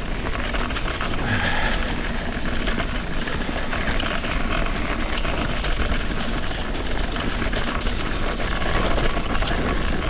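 Mountain bike rolling down a dirt jump trail: steady tyre and wind noise with constant small clicks and rattles from the bike.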